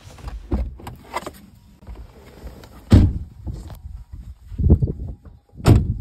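Several dull, heavy thumps with lighter knocks and rustling between, the loudest about three seconds in and just before the end.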